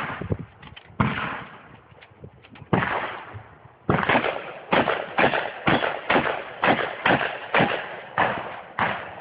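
Shotgun shots fired during a timed competition stage: two spaced shots in the first three seconds, then from about four seconds in a fast string of about two shots a second.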